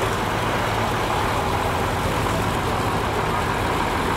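An engine running steadily with a low hum, amid outdoor background noise.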